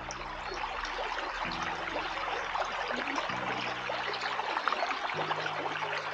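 Small shallow brook running and trickling over stones, a steady rush of water, with soft sustained background music chords underneath.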